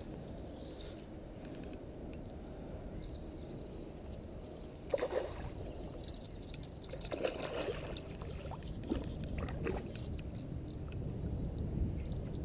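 Hooked carp splashing and thrashing at the water's surface close to the bank as it is played into the landing net, with sharp splashes about five and seven seconds in and smaller ones after, over a steady low rumble.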